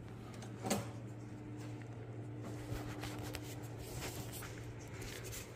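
Quiet room tone with a low steady hum, scattered small clicks and handling noises, and one sharper knock a little under a second in.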